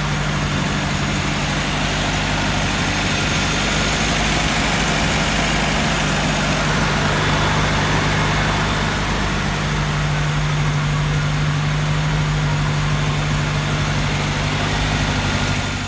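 Datsun 510 engine idling steadily: a constant low hum with an even steady hiss over it.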